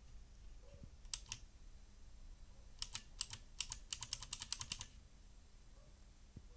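Keystrokes on a GAMDIAS Hermes P1 mechanical keyboard with clicky TTC Blue switches: two key presses about a second in, then a quick run of about a dozen presses over two seconds.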